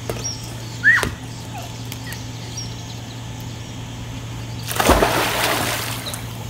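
A person jumping into a swimming pool: a heavy plunge and splash of water about five seconds in, lasting about a second. About a second in there is a short sharp hit, as loud as the splash, and faint bird chirps sound now and then over a steady low hum.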